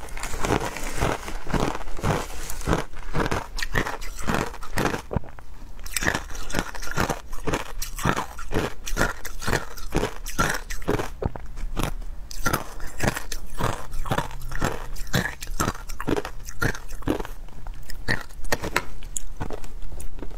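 Matcha ice being bitten and chewed: a quick, continuous run of sharp crunches as the frozen pieces break between the teeth.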